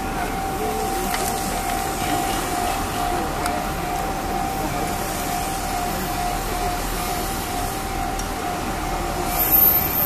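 Japanese level crossing warning bell ringing steadily at one pitch, over the rumble of a commuter train on the tracks. A louder burst comes near the end.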